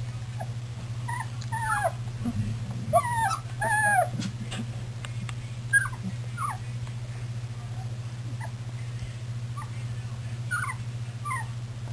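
Golden retriever puppies whimpering and squeaking: short, high, falling squeals in scattered clusters, over a steady low hum.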